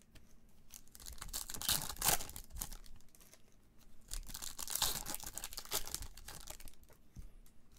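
Foil trading-card packs being torn open and their wrappers crinkled by hand, in bursts of crackling about two seconds and five seconds in.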